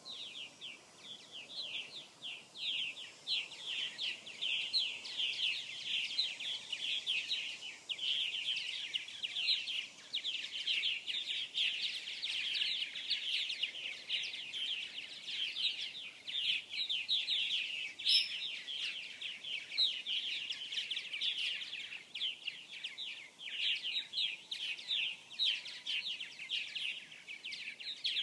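A colony of purple martins chattering, many birds calling over one another in a dense, unbroken stream of quick, high chirps.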